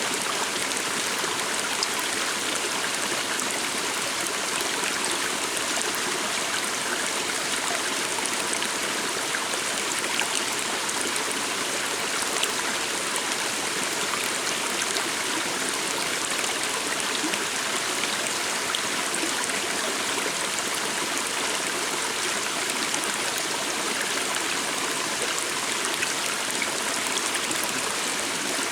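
Small forest stream flowing steadily, an even rush of running water with no let-up.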